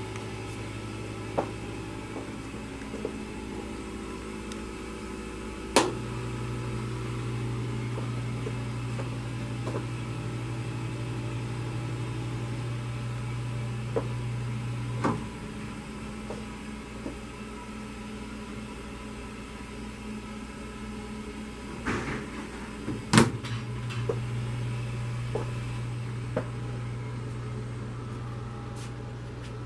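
Pretzel warmer display case's rack-turning motor humming steadily. It starts louder after a click about six seconds in, cuts out after a click about halfway through, and starts again after a sharp latch click, as the rotating rack stops while the door is open and restarts when it is shut.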